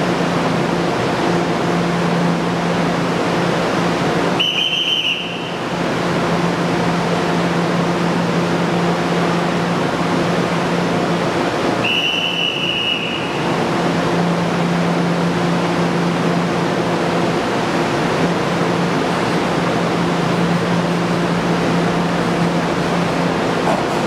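Steady electrical hum of a stationary electric train (TEMU2000 Puyuma set) at the platform, a low drone with higher overtones. A shrill whistle sounds twice, briefly about four and a half seconds in and for over a second about twelve seconds in.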